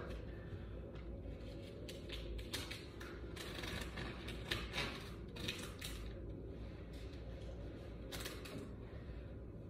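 Faint scattered clicks and rustling of hands working with tape and paper decorations.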